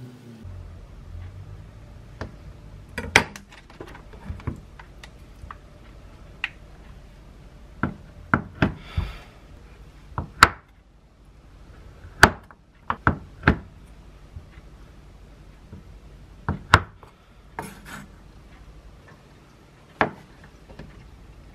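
Kitchen knife cutting small sausages on a wooden cutting board: irregular sharp knocks as the blade strikes the board, about twenty spread unevenly through the stretch.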